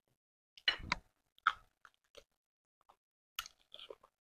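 Close-miked chewing of soft sweet potato and stew: a string of separate wet mouth clicks and smacks, loudest about a second in.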